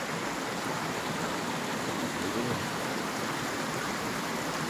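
Steady, even rushing of a river's flowing water.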